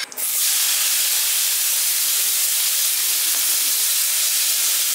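Sliced onions dropped into hot oil in a kadai, setting off a loud, steady sizzle and hiss that starts suddenly as they hit the oil.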